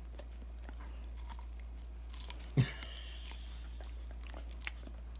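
German Shepherd chewing and crunching corn on the cob, with scattered crunching clicks and one louder thump about two and a half seconds in.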